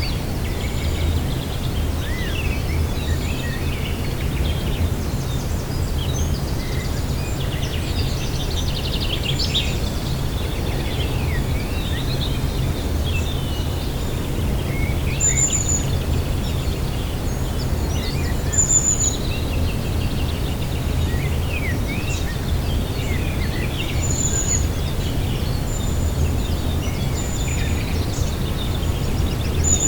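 Several wild birds singing and calling, with many short chirps and trills and a few sharp high notes, over a steady low background rumble.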